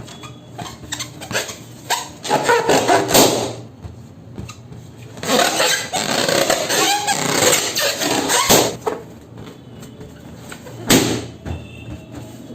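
Rustling and handling noise from balloons or balloon packets, with scattered clicks and knocks. There are two stretches of dense rustling, a short one about two seconds in and a longer one from about five to nine seconds.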